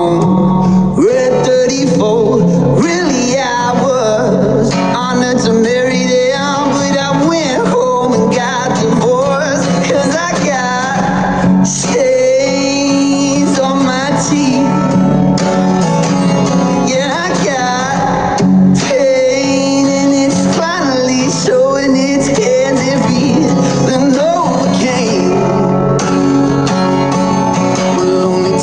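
Background music: a song with singing over guitar at a steady level.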